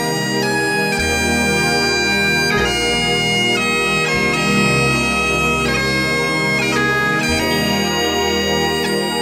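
Bagpipe music: a melody of held notes changing over a steady drone.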